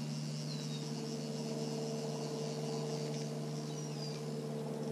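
Lakeside ambience: a steady low mechanical hum under a high insect buzz, with a few short, high, falling bird chirps.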